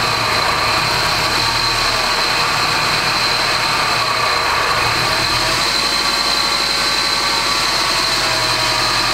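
Subaru WRX STI's turbocharged 2.5-litre flat-four idling steadily just after start-up, running a little bit rough. This is the flood-damaged engine's first run on fresh oil, now reading the mass airflow sensor.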